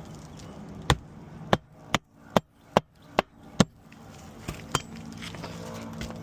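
Hammer driving roofing nails into asphalt shingles: seven sharp blows in quick succession, then two lighter taps about a second later.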